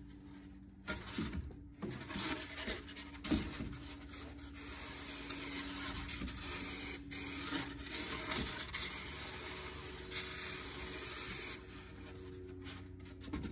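Aerosol spray adhesive hissing from the can onto the edge of a foam patch: a few short spurts at first, then a long steady spray that cuts off suddenly near the end. Light rustling from handling the foam and cardboard.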